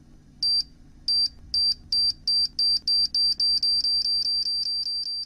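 Bomb countdown sound effect: a series of short, high electronic beeps that speed up steadily, from nearly a second apart to almost continuous by the end.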